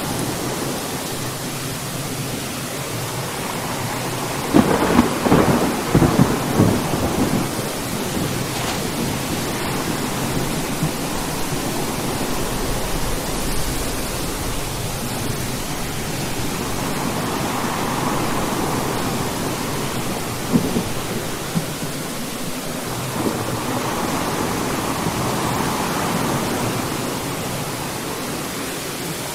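Steady rain with a thunderstorm: a sharp, crackling thunderclap about five seconds in, a shorter crack about twenty seconds in, and rolling rumbles swelling and fading between them and near the end.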